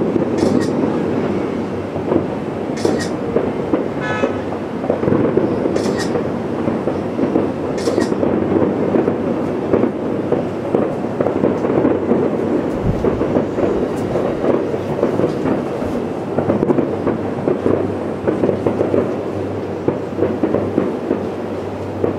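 Distant fireworks finale: a continuous rolling rumble of many shell bursts overlapping, with a few sharper cracks in the first several seconds, easing off slightly near the end.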